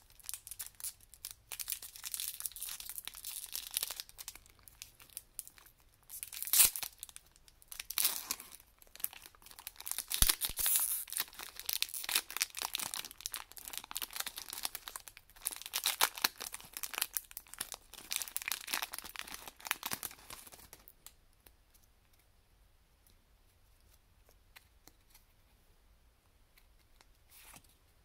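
A foil Pokémon booster pack wrapper being torn open and crinkled by hand: a long run of sharp tearing and crackling that stops about twenty seconds in.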